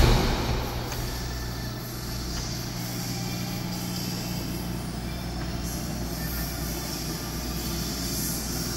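A sharp knock at the very start, then a steady low machine hum.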